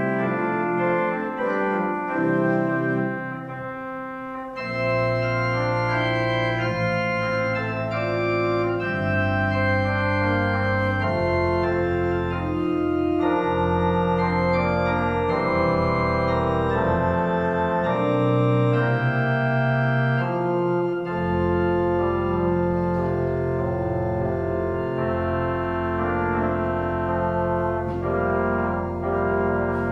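Organ music: slow, sustained chords over held bass notes, the harmony changing every second or two. The bass drops out briefly a few times.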